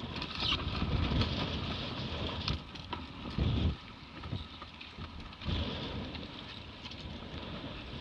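Wind buffeting the microphone over the hiss and rush of spray as a Hobie 16 catamaran's hull slices fast through choppy water. Heavier gusts rumble in about a second in and again, loudest, around three and a half seconds in.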